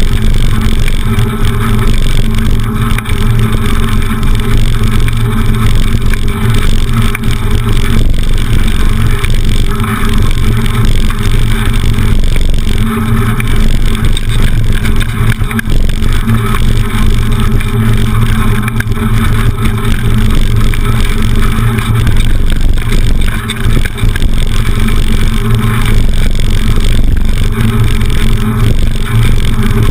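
Steady loud rumble and rattle of a bicycle rolling over cobblestones, carried straight into a camera mounted on the bike's front.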